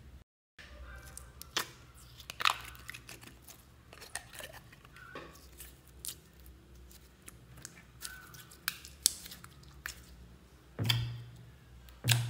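Jelly slime squeezed out of a small plastic tub by hand, with scattered sharp clicks, crackles and squishes from the jelly and the plastic. Two louder knocks with a low thud come near the end.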